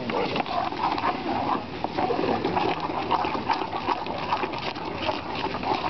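Liquid nitrogen boiling and bubbling in a bowl of cream and milk as it is stirred in, a continuous irregular gurgling that froths and freezes the mix into ice cream.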